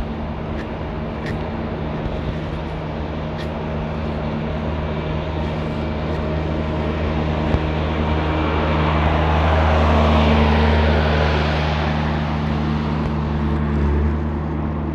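Street traffic: a steady low engine hum, with a vehicle passing that swells to its loudest about two-thirds of the way through, falls in pitch and fades.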